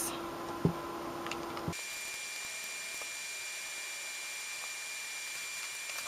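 Low steady background hum with a faint click under a second in, then about two seconds in the background switches abruptly to an even hiss with a faint high-pitched whine, as at a cut in the recording.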